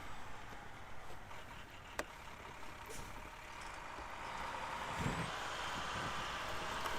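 Snowplow truck's engine running, growing louder over the last few seconds, with a couple of sharp clicks.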